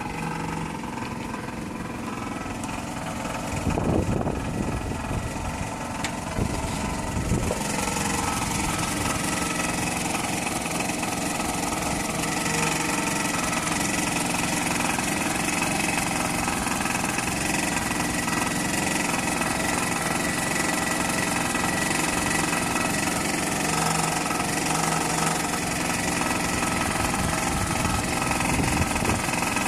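Toyota 2AZ-FE 2.4-litre four-cylinder engine running steadily with a knock, which the owner presents as the fault he is complaining about. It gets louder and brighter about seven seconds in.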